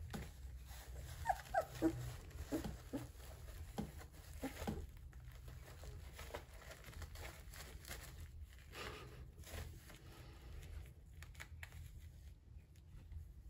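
Two-week-old Goldendoodle puppies giving a few short, high cries in the first couple of seconds, with soft rustling and scratching as they crawl over puppy pads.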